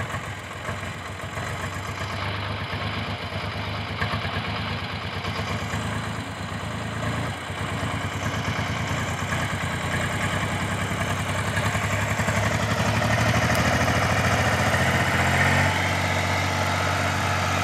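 Diesel engines of a JCB backhoe loader and a Swaraj farm tractor running steadily, growing louder over the second half.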